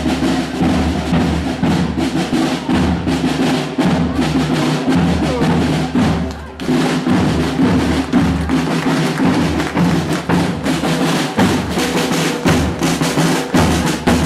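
Marching band playing a march on the move: clarinets and other wind instruments hold the tune over a steady beat of snare drums and a bass drum.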